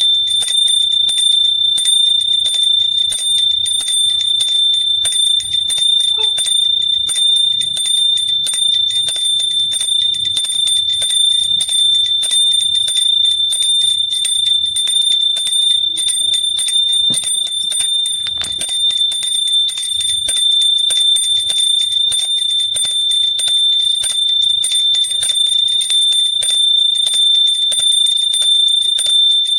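Small hand bell rung continuously: rapid, uneven clapper strikes keep one steady, high ringing tone going.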